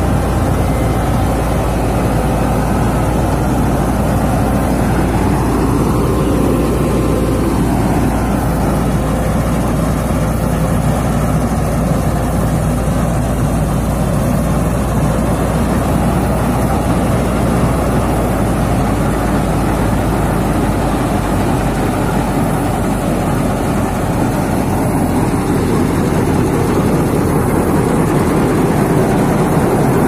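Balkar 7500 Crop Star track combine harvester running, its Ashok Leyland four-cylinder 76 hp non-turbo diesel engine making a steady low rumble with the machine's running gear.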